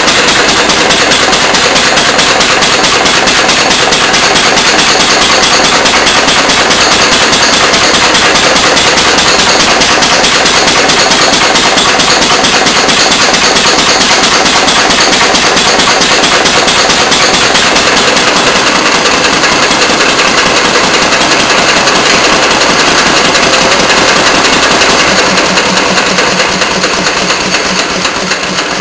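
Antique Fairbanks Morse throttle-governed single-cylinder engine running loud under load from a wooden prony brake on its shaft, a fast steady knocking beat. It grows quieter near the end.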